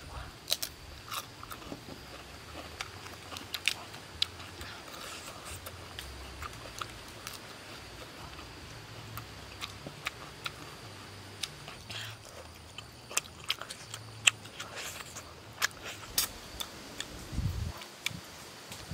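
A person eating close to the microphone: crisp bites of raw cucumber and chewing of roasted chicken thigh, with irregular sharp crunches and mouth smacks. A brief low thump comes near the end.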